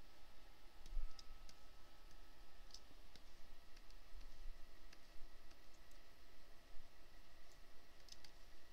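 Scattered light clicks of a computer pointing device placing the points of a polygonal lasso selection, several in the first few seconds and a few more near the end, over a faint low hum.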